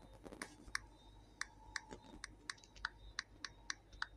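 Typing on a smartphone's on-screen keyboard: a run of short, sharp clicks, about three a second.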